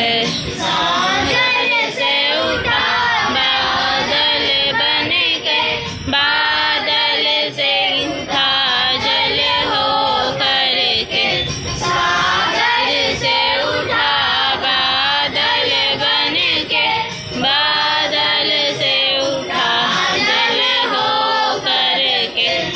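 A group of young voices singing a prayer together in chorus, phrase after phrase with short breaks between lines.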